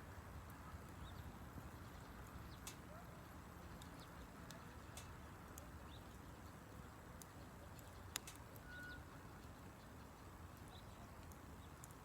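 Wood fire crackling faintly: sparse sharp pops and snaps from the burning wood, one louder pop a little past the middle.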